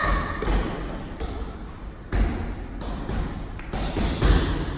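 Irregular dull thumps, a few seconds apart, of blows landing on a hanging heavy punching bag.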